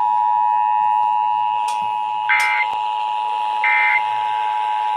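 Emergency Alert System attention signal: a steady two-tone alert sounding without break. Three short digital data bursts, the screeching EAS header/end-of-message code, sound over it about a second and a half apart.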